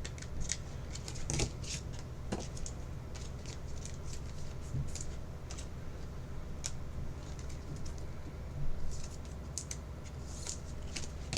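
Trading cards and card packaging being handled: scattered light clicks and rustles at an uneven pace over a low steady hum.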